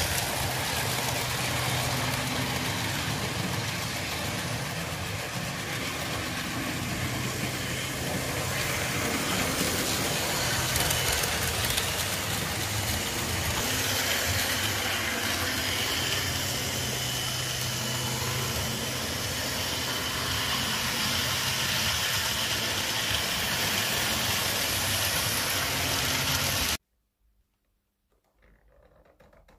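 HO-scale model trains running on a layout: a steady whir and hum of small electric motors with wheels rolling on the track. It cuts off abruptly near the end.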